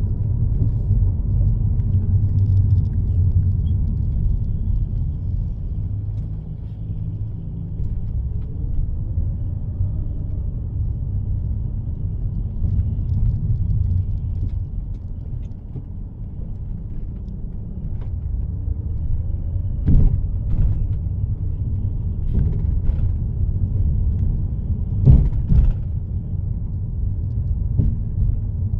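Steady low rumble of road and engine noise inside a moving car's cabin, with a few short sharp thumps in the second half, the loudest near the end.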